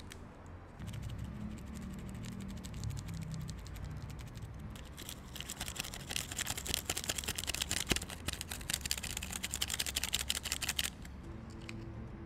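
A thin paper stick sachet of ground oregano being torn open and then flicked and tapped to shake the powder out. The tapping makes a fast, dense crackle of small ticks that stops abruptly near the end.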